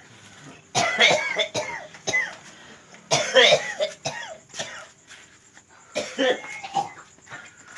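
A man coughing hard in three bouts, about one, three and six seconds in. It is the chronic cough he has had for over two years, for which no illness has been found.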